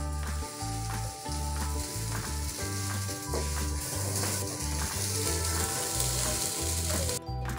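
Fish-and-potato mash sizzling in a frying pan with a little oil and fried spices, as a plastic spatula stirs and scrapes through it. The sizzle cuts off suddenly near the end, over light background music.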